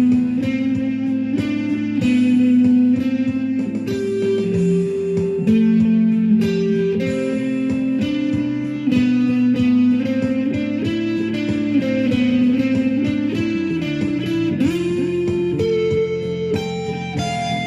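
Instrumental rock music led by an electric guitar playing a melody of long held notes over accompaniment, with a sliding pitch drop about fourteen seconds in.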